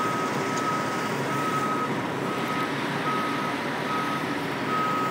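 Reversing alarm on heavy machinery beeping steadily about once a second, over the continuous rumble of engines.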